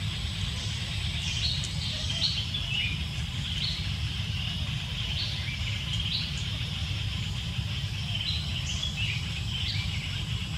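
Small birds chirping in short, repeated calls, several a second at times, over a steady low rumble.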